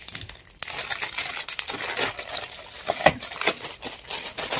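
Plastic courier mailer bag crinkling and rustling as it is pulled and torn open by hand, with a sharper crackle about three seconds in.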